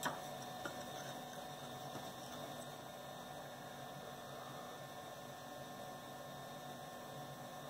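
Steady electrical hum and hiss of workshop room tone, with a couple of faint clicks near the start.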